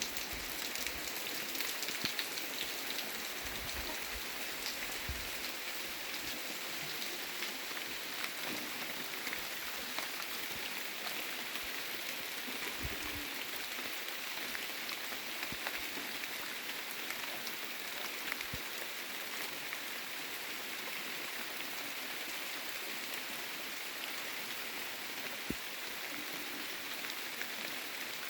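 Steady rain falling, a dense even hiss of drops with many small individual patters on hard surfaces.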